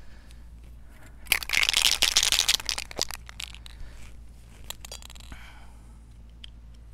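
Handling of an aerosol can of exhaust coating and its thin extension tube: a loud burst of rattling and scraping lasting about a second and a half, starting just over a second in, then a few small clicks.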